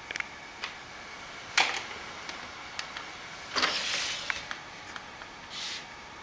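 A cat pawing and smacking at a computer's DVD drive and its tray. Scattered light clicks and taps, a sharp knock about a second and a half in, and a half-second sliding noise a little past the middle, over a steady hiss.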